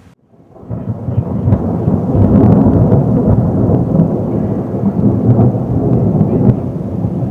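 Thunder rumbling: after a brief silence it swells up over about a second and then keeps up a loud, deep, rolling rumble.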